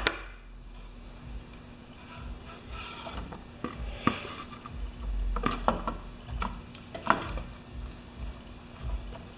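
Scattered clicks and knocks of a Honda HRR216 mower's rear wheel and drive pinion gear being handled and fitted onto the transmission axle.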